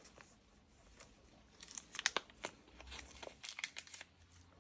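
Crinkling and crackling of packaging being handled during an unboxing, with a run of sharp crackles from about two to four seconds in.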